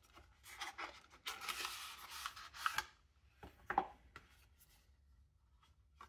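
Cardboard and plastic packaging handled as a phone case is slid out of its box: a rubbing, sliding rustle lasting over a second, with a few soft knocks and taps before and after.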